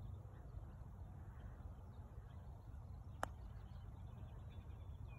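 A putter strikes a golf ball once with a single short, sharp click about three seconds in, over a steady low rumble.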